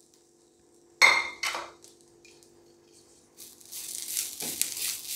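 One ringing clink against the pan about a second in. From about three and a half seconds in, a wooden spatula stirs and scrapes grated coconut, shallots and curry leaves around a hot pan as they start to roast.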